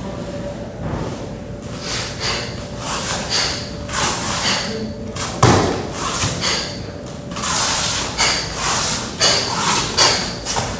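Barefoot steps and body movement on foam floor mats: repeated brushing swishes and soft thumps, with a sharper thud about five and a half seconds in.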